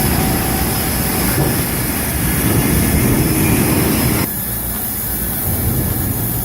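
Sawmill saws and equipment running: a loud, steady machine noise that drops a little in level about four seconds in.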